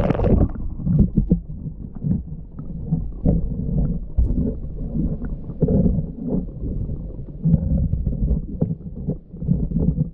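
Muffled low rumbling with irregular knocks, picked up by a camera in a waterproof housing underwater: water moving against the case and handling bumps as it is lowered and turned among the weeds.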